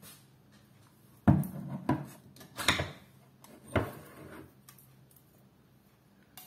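Handling knocks on a wooden table as an opened metal can of coconut milk is picked up and moved: about four short knocks and clatters, the loudest about a second in.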